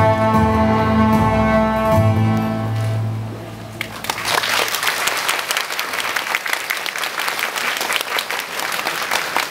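A children's cello ensemble bows a final held chord that fades out about three seconds in. The audience then breaks into applause, which carries on steadily.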